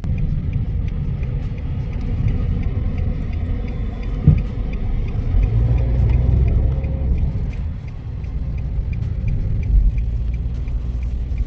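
Road noise inside a moving car's cabin: a steady low rumble of tyres and engine, with a short thump about four seconds in.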